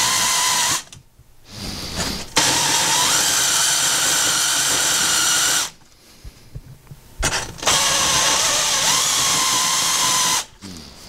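Rotary tool spinning a sandpaper cone against the aluminium cylinder, chamfering the port edges so the piston rings won't snag. A steady, high whine that wavers slightly in pitch, cut off twice for a second or two, so it runs in three spells.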